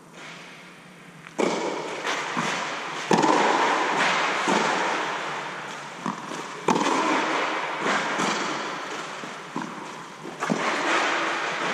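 Tennis ball struck back and forth with rackets in a rally, about four loud hits a few seconds apart with softer bounces on the clay court between them. Each hit rings on in a long echo inside the inflated air-dome hall.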